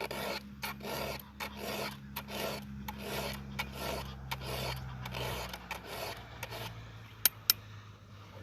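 Rhythmic rasping strokes, about two and a half a second, over a low steady hum. Two sharp clicks follow near the end.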